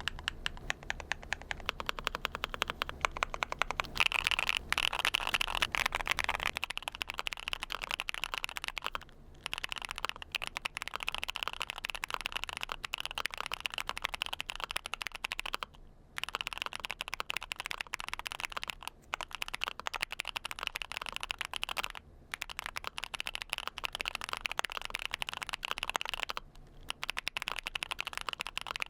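Luminkey75 custom mechanical keyboard being typed on rapidly, a dense clatter of keystrokes broken by four brief pauses.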